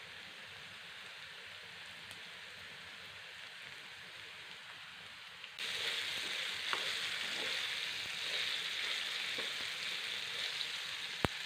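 Potato pieces frying in a pan, a steady sizzle that turns louder about halfway through. A few faint knocks, and a single sharp click near the end.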